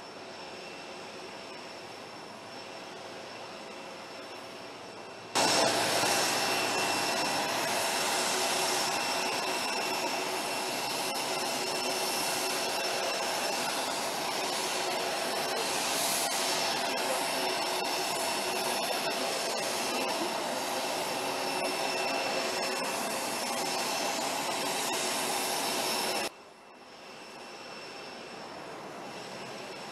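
Jet aircraft engines running with a steady high-pitched whine over a rushing noise. The sound jumps much louder about five seconds in and drops back abruptly near the end.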